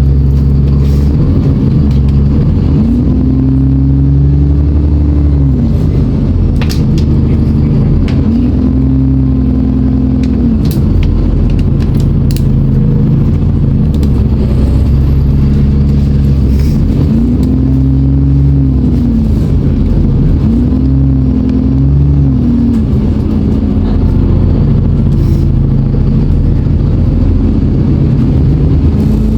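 ADL Enviro 400 double-decker bus's diesel engine thrashing under load, with a whine that rises, holds and falls away about five times as it pulls. A few short rattles come through.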